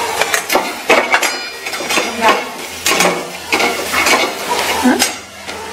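Steel spatula scraping and clinking against a stainless steel kadhai while stirring fried onions with turmeric: a run of irregular metal scrapes and knocks.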